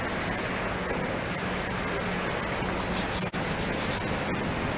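A gloved hand rubbing across the face of a plywood sheet, feeling for hollows and unfilled knot holes before puttying. There are a few quick brushing strokes about three seconds in, over a steady low hum.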